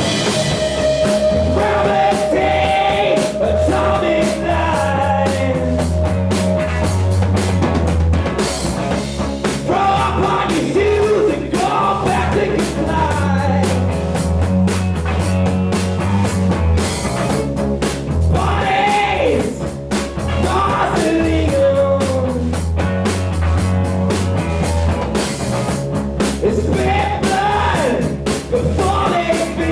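Loud grunge rock band playing, with drums, bass and guitar under a singing voice.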